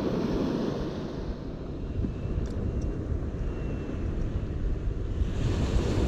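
Surf washing onto a beach, with wind rumbling on the microphone; a wave surges in near the end.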